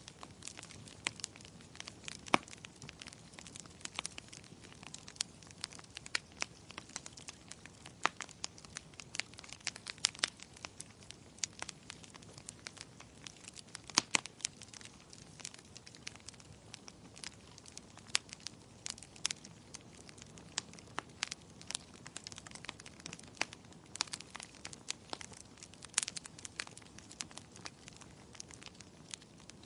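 Wood fire in a fireplace crackling: irregular sharp pops and snaps, several a second, over a soft hiss, with louder pops about 14 and 26 seconds in.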